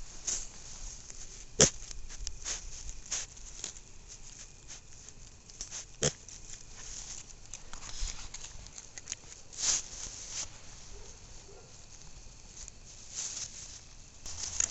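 Mini pig rooting in grass, giving irregular short sniffs and snuffles with its snout, with a couple of sharper snorts about a second and a half in and about six seconds in.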